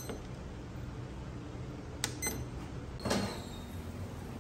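A digital kitchen timer: a short beep at the start, then two faint button clicks a little after two seconds. About three seconds in comes a louder metallic clunk with a brief ring, the sound of the metal baking tray against the oven.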